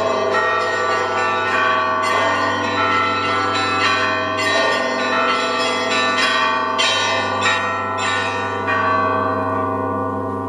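Russian Orthodox church bells ringing: several bells of different pitches struck in a rhythmic peal, each strike ringing on into the next. The strikes stop near the end and the bells die away.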